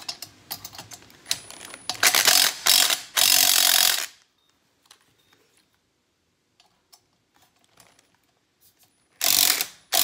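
Hand ratcheting screwdriver ratcheting in bursts while tightening the set screws of a ceiling fan's downrod coupling. A few scattered clicks come first, then three loud runs of fast ratchet clicking from about two to four seconds in. After a quiet stretch, another short run comes near the end.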